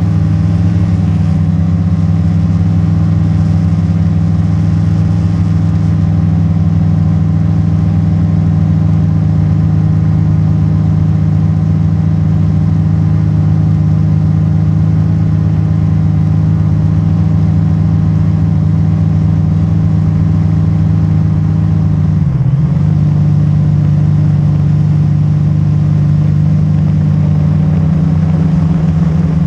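Quadcopter drone's electric motors and propellers buzzing steadily in flight, a loud even hum of several tones with a brief dip in pitch about three-quarters of the way through.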